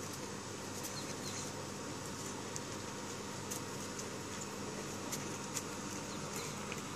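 Faint, scattered clicks and scuffs of dogs' paws and claws on patio tile and gravel while two dogs play-wrestle, over a steady background hiss and hum.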